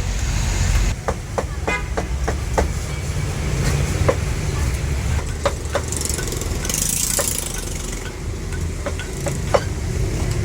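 Cleaver chopping roast meat on a chopping block: a run of sharp, irregular chops, several in quick succession in the first few seconds and more scattered later, over a steady rumble of street traffic.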